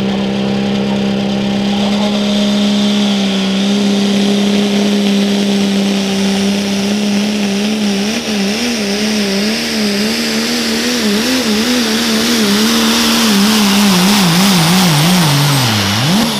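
Diesel pickup pulling truck running flat out under load against the sled, a steady high-rpm drone for about eight seconds, then the engine pitch surging up and down over and over as the pull goes on, with a sharp dip near the end.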